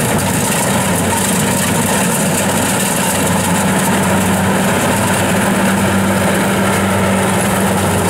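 Kubota combine harvester running as it cuts rice: a steady low engine hum under a constant wash of machine noise, with no change in level.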